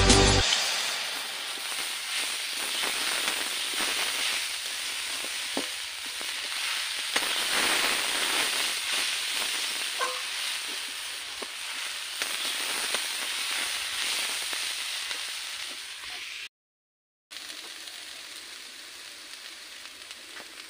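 Leafy greens (shak) frying in a karahi over a wood fire, with a steady sizzle. A metal spatula gives occasional light scrapes and taps against the pan as the greens are stirred.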